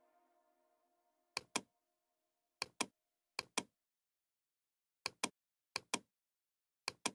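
Computer mouse clicking: six pairs of sharp clicks at irregular intervals. Faint background music fades out in the first second.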